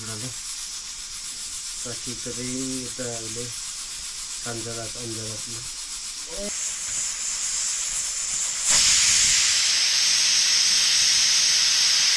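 Cooking in hot oil in a pan, a steady sizzle that jumps suddenly much louder about two-thirds of the way through and stays loud, as when food is tipped into the hot oil. Voices talk in the first part.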